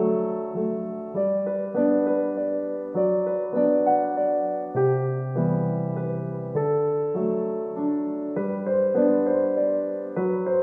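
Background music: soft piano chords, a new chord struck about once a second and left to fade.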